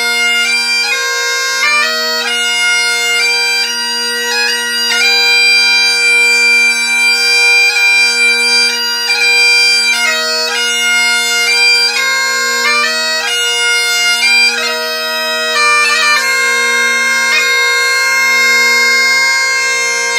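Great Highland bagpipe playing a slow air: the chanter melody moves in slow steps over the steady drones, ending on a long held note.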